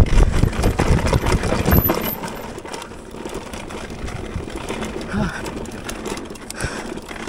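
Mountain bike rolling fast down a rough dirt trail: low rumble of tyres and wind with the bike rattling and clicking. It is loudest over the first two seconds, then eases to a quieter rumble with scattered clicks.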